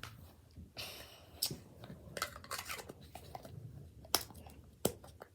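Hands handling Play-Doh and its plastic pieces: a string of small clicks and taps with a brief rustle about a second in.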